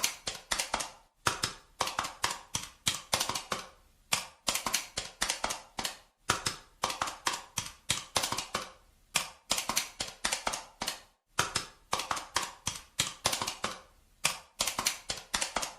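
Calculator buttons pressed in quick runs of several clicks a second, with short pauses between runs.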